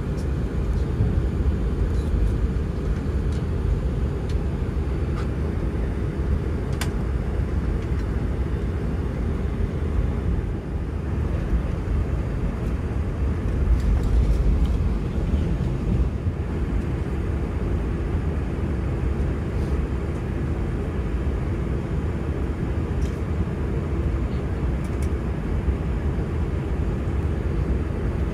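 Steady low rumble inside an Airbus A319-100 cabin, from the engines and airflow, with a few faint clicks.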